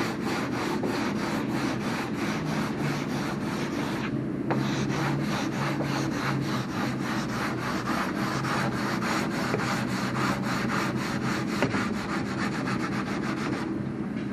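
Sandpaper on a hand sanding block rubbing back and forth over a thick coat of primer, knocking the first coat down. The strokes come at a steady few a second, with a brief pause about four seconds in and another near the end, over a steady low hum.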